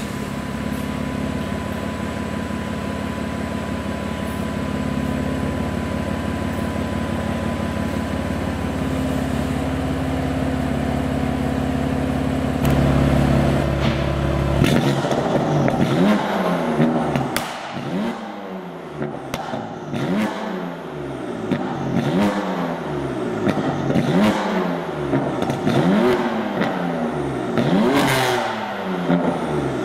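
BMW M4 F82's twin-turbo straight-six engine heard from the exhaust, idling steadily for about the first half, then revved over and over, the pitch rising and falling about once every two seconds.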